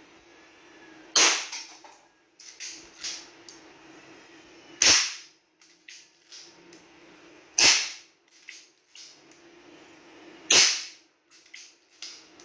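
Artemis CP2 CO2-powered air pistol firing four shots about three seconds apart, each sudden and loud, with a few lighter clicks between the shots.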